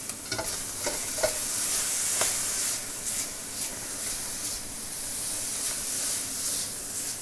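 Diced pancetta sizzling steadily as it fries in a wok, nearly done. A spatula scrapes and knocks against the pan a few times in the first couple of seconds.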